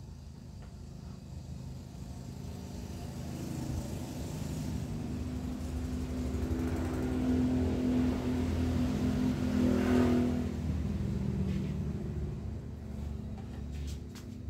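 A motor vehicle's engine passing by, growing steadily louder, loudest about ten seconds in, then fading away.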